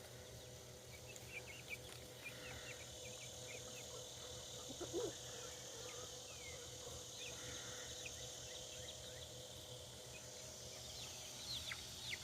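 Faint outdoor ambience: a steady high insect drone, scattered short high chirps, and one low chicken cluck about five seconds in.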